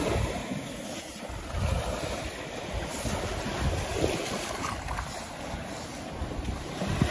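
Small waves washing up on a sandy shore, with wind buffeting the microphone in uneven low gusts.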